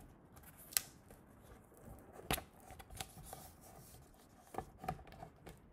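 Sheets of paper being handled and changed over: soft rustling with a few sharp crackles and taps, the sharpest about a second in.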